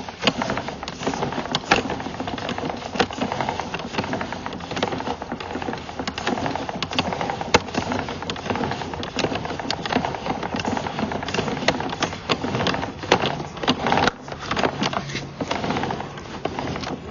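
Sewer inspection camera's push cable being pulled back through the pipe and onto its reel: a continuous rattle with many irregular clicks and knocks.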